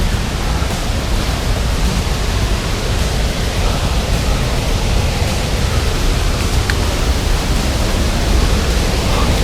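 Waterfall water rushing, a loud steady noise with a heavy low rumble.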